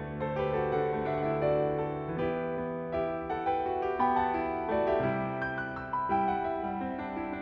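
Garritan CFX sampled concert grand piano, driven by a Disklavier performance, playing a slow, lyrical solo arrangement: held bass notes and chords under a singing melody in the upper range, with chord changes about every second or two.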